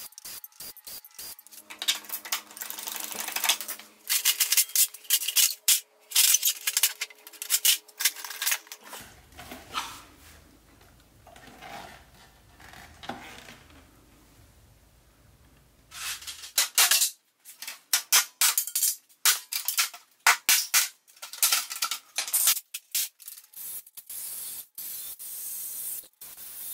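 A cordless drill/driver running in short whirring bursts, backing screws out of an office copier's sheet-metal panels, among clanks and rattles of metal and plastic parts being pulled loose and handled.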